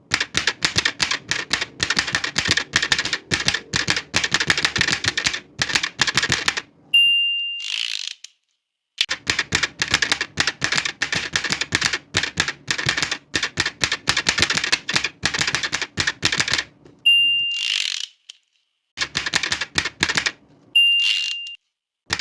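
Old manual typewriter being typed on in quick runs of keystrokes. Three times, about 7, 17 and 21 seconds in, the typing stops for the short ding of the margin bell and the swish of the carriage being returned before it starts again.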